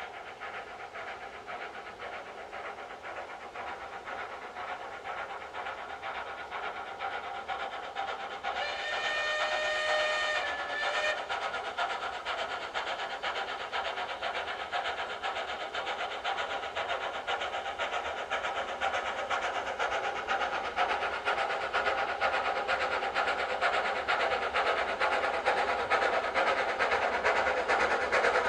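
Small tank steam locomotive working a train of coaches, chuffing and growing louder as it approaches. About eight and a half seconds in, its steam whistle sounds one blast of about two and a half seconds.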